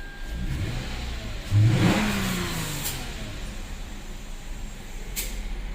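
Lexus IS V6 engine idling and revved once about a second and a half in, its pitch rising and then falling back. It runs smoothly, the misfire cured by new ignition coils.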